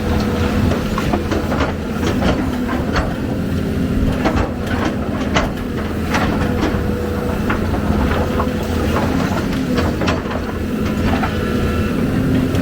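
Diesel excavator engine running steadily under load, with frequent irregular clanks and knocks from the working machine.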